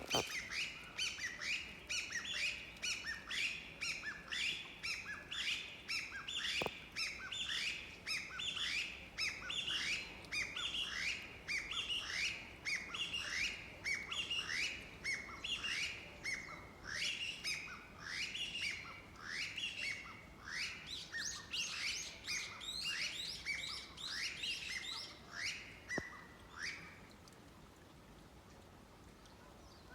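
Small birds chirping continuously: short, quickly repeated calls, several a second, overlapping one another and stopping near the end.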